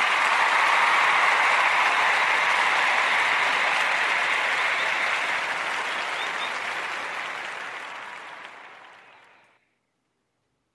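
Applause from a crowd clapping, loud at first and then fading away, ending about nine and a half seconds in.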